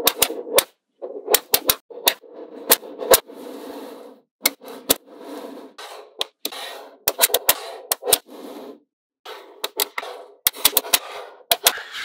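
Small magnetic balls clicking sharply as they snap onto one another, often several clicks in quick succession, between stretches of balls rolling and rattling against each other.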